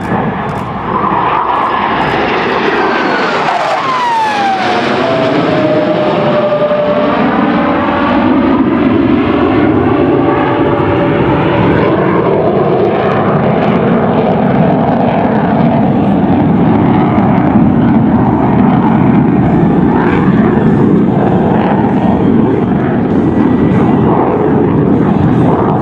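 Two F-104 Starfighters' General Electric J79 turbojets passing overhead: a loud jet roar with a whine that falls sharply in pitch a few seconds in as the jets go by. The whine then holds steady while the roar builds slightly and stays loud as the jets climb away.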